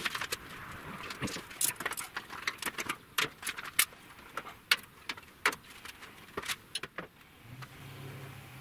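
Irregular sharp clicks and clacks with paper rustling: strong hard-drive magnets and a sprayed paper lettering stencil being pulled off a rusty steel panel.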